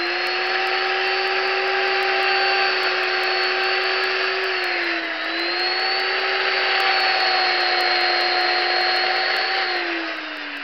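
Chainsaw running at high speed while carving into a wooden block, a steady high whine. Its pitch dips briefly about halfway through and drops as the saw is let off near the end.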